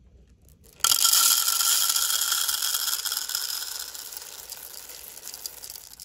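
Whole roasted coffee beans poured into the clear plastic hopper of a Shardor burr grinder: a dense rattle of beans hitting plastic and each other that starts suddenly about a second in and thins gradually as the hopper fills.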